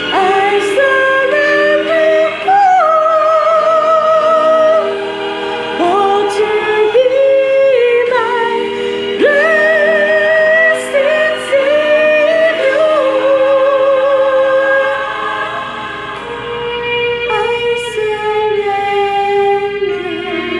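A woman singing solo with strong vibrato, holding long notes and sliding between them, over a steady instrumental accompaniment.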